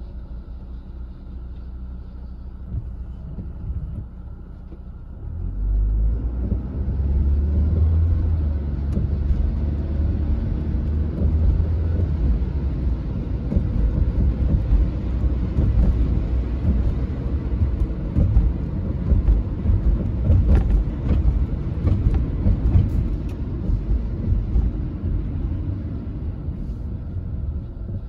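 Car driving on a wet road, heard from inside: a low engine and road rumble that swells about five seconds in as the car pulls away from a stop, with the hiss of tyres on wet pavement, easing off near the end as it slows.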